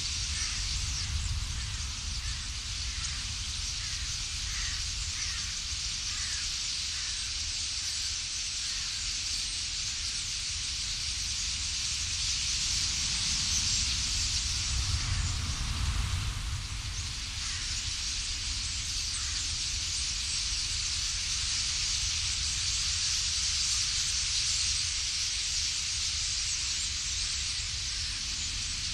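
A huge murmuration of common starlings: a steady rushing hiss of massed wingbeats and calls, with faint short calls picked out here and there, over a low rumble. The rush swells about halfway through.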